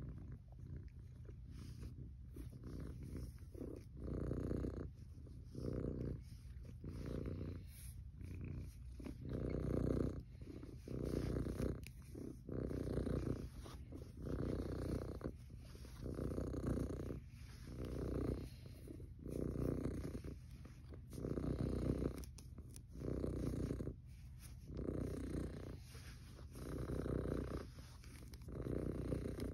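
Tabby cat purring close up, a low steady rumble that swells and fades in a regular rhythm about every second and a half.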